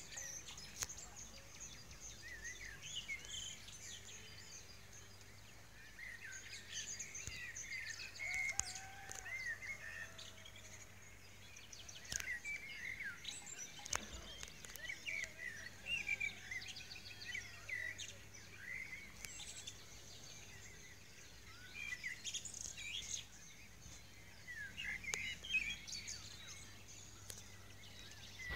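Several wild songbirds singing and chirping in short bursts of quick, high phrases that come in clusters every few seconds, over a faint steady background hiss.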